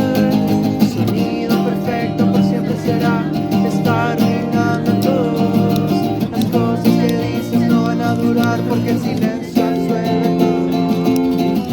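Live acoustic performance: strummed acoustic guitar with singing.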